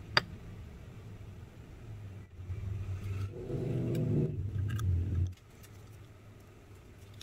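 Handling noise from assembling a resin 3D printer's Z-axis guide block and rail: a sharp click right at the start, then a couple of seconds of louder rubbing and scraping that stops abruptly. A steady low hum runs underneath.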